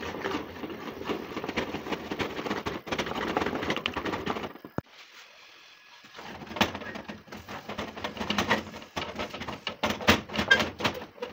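Wooden spatula stirring semovita in an aluminium pot: quick, continuous scraping strokes, then after a short break about five seconds in, slower, irregular knocks and scrapes as the thickening semolina dough is turned and pressed into semo.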